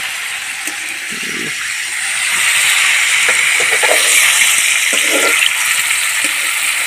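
Paneer cubes sizzling steadily in hot oil in a steel kadhai, growing a little louder after about two seconds, with a flat spatula moving through them.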